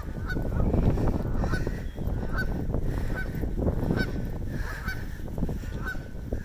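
A flock of Canada geese honking repeatedly, roughly one or two short honks a second, in alarm at a dog coming near. A steady low rumble runs underneath.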